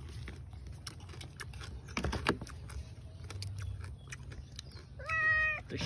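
Small clicks and crunches of cooked crab shells being cracked and picked apart by hand while eating, with a louder crack about two seconds in. Near the end, a brief high-pitched call.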